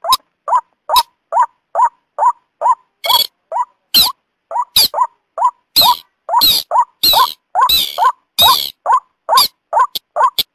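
Calls of a white-breasted waterhen and a beker, played together as a bird-lure recording. A steady run of short repeated notes comes about two to three a second, and louder, harsher calls join in from about three seconds in until near the end.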